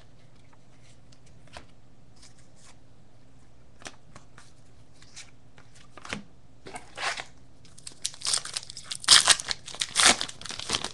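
A few light taps of baseball cards being laid on piles, then, from about six seconds in, a trading-card pack's wrapper crinkling and tearing open in quick irregular bursts, loudest near the end.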